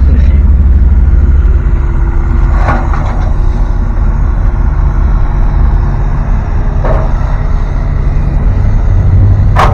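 Old Dodge pickup truck heard from inside the cab while driving: a steady, loud low rumble of engine and road noise.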